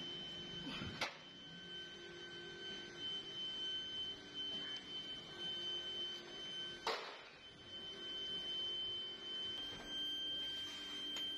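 A steady high-pitched whine, with two sharp metal clanks from pieces of cast-iron scrap being handled, one about a second in and one past the middle.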